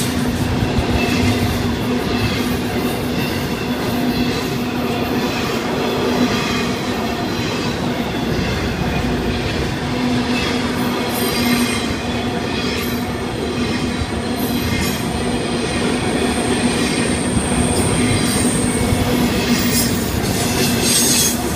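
Florida East Coast Railway freight cars (autoracks and intermodal trailers) rolling past at speed: a steady rumble with the wheels clacking over the rail joints, and a thin high wheel squeal for several seconds in the middle.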